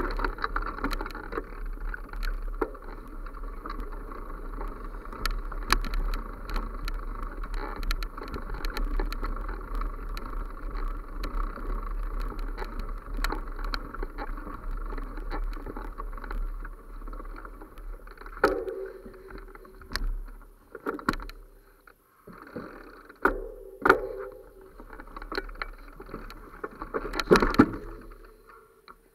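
Movement noise of a camera carried fast along a forest dirt path: a steady rumbling rustle that, about two-thirds of the way through, breaks into irregular knocks and brushing sounds with short quiet gaps.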